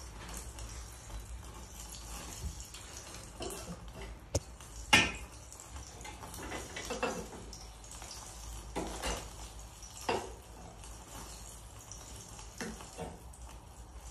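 Scattered clinks and knocks of a knife and small metal tools against a metal bowl and tabletop, the loudest about five seconds in, over a steady faint background hiss.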